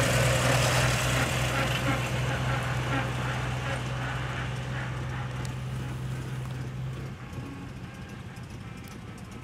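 Farmall tractor engine running steadily as the tractor drives past, loudest at first and fading as it pulls away; the hum drops off about seven seconds in.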